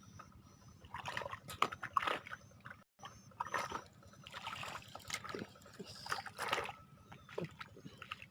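Water splashing and sloshing in a series of irregular bursts.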